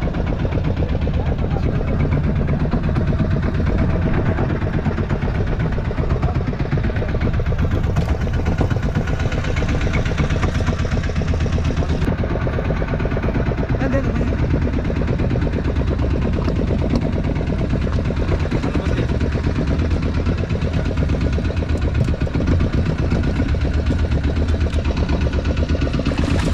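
Fishing boat's engine running steadily, with a fast, even beat and a heavy low rumble.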